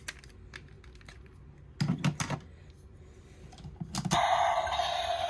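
Hard plastic toy parts clicking and snapping as a ring is pushed into the head of the DX Tega Sword robot, with a quick cluster of clicks about two seconds in. About four seconds in, after one more click, a steady noisy sound starts and keeps going.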